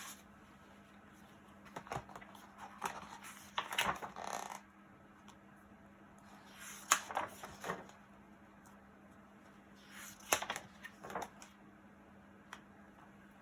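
Pages of a picture book being handled and turned: scattered short paper rustles and soft taps at irregular moments, over a faint steady hum.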